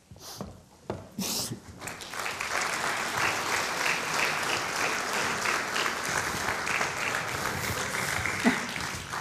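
Theatre audience applauding: a few scattered knocks and claps in the first second or two, then steady full applause that fades near the end.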